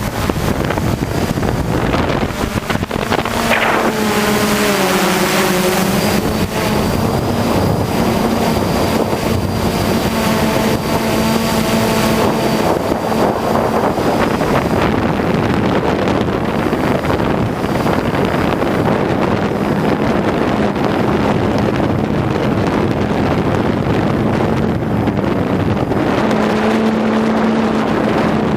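Hexacopter's electric motors and propellers droning steadily, their pitch shifting a few seconds in as it manoeuvres, with wind buffeting the microphone.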